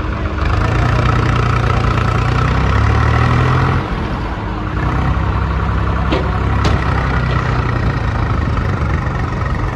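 Diesel engine of a JCB backhoe loader working under load as it digs and loads soil. The engine swells, eases off for about a second near four seconds in, then picks up again. Two sharp knocks come a little after six seconds.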